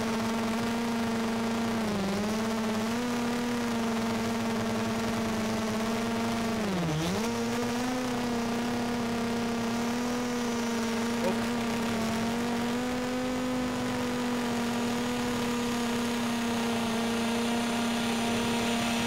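DJI Mavic Pro quadcopter's propellers and motors buzzing steadily as it hovers and descends to land. The pitch dips briefly about two seconds in, and again more deeply about seven seconds in.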